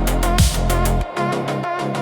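Synthwave music: electronic synthesizer melody over a deep bass line and a kick drum. About a second in, the bass and kick drop out, leaving the synthesizer notes.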